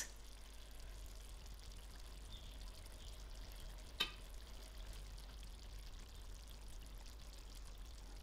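Chicken curry simmering on low heat in a pan: a faint, even hiss with a fine crackle. One light click about four seconds in.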